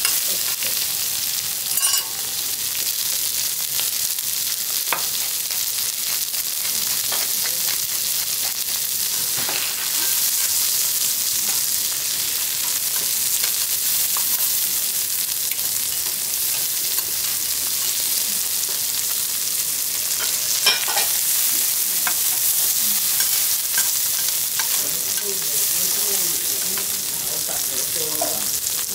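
Cubes of A5 wagyu sirloin sizzling on a steel teppanyaki griddle in a steady hiss. A few sharp clicks of the chef's metal spatula and knife on the steel stand out, the loudest about three quarters of the way through.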